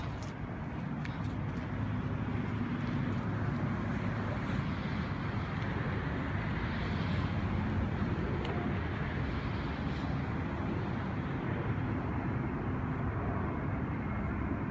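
Steady outdoor background noise: a low, even rumble with no speech.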